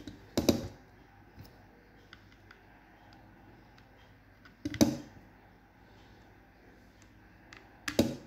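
Sharp plastic clicks and knocks, three louder ones about half a second in, near the middle and near the end, with faint ticks between: hands handling a Milwaukee M18 drill's plastic housing and setting its screws back into their holes.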